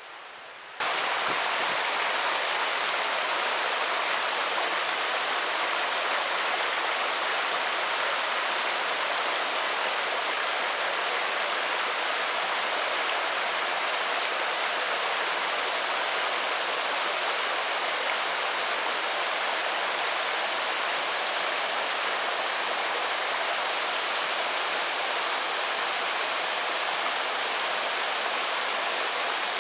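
Mountain stream running over rocks, a steady rush of water that starts suddenly about a second in.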